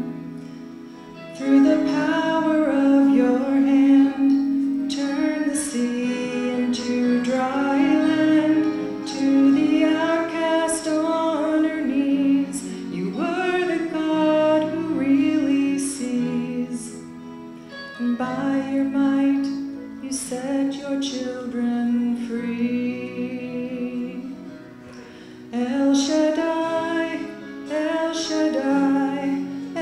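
A woman singing a slow song solo into a handheld microphone, holding long notes, with short breaks between phrases near the start and about three-quarters of the way through.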